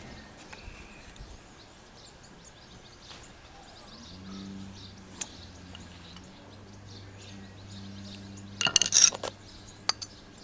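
Hand tools and small parts clinking and clattering, in one loud burst about two-thirds through and a few sharp clicks after it. Birds chirp faintly over a low steady hum.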